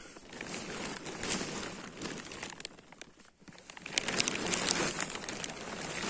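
Plastic sheeting crinkling and rustling as it is handled close to the microphone, with a brief lull about three seconds in before the crinkling picks up again.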